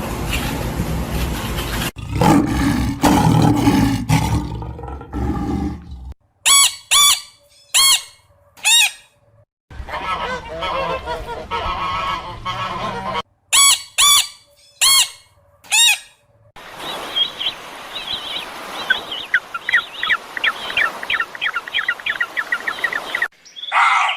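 Two bouts of three or four loud, short honking calls from waterfowl, with other animal sounds between and around them. A quick, regularly repeated chirping runs through the last few seconds.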